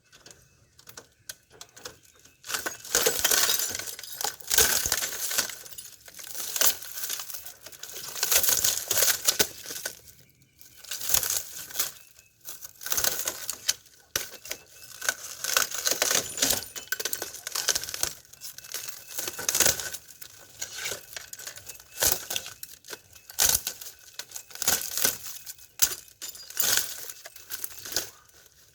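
Glass of a Samsung plasma TV panel crunching and crackling as it is broken up and pulled apart, in repeated bursts of a second or two with scattered sharp clicks.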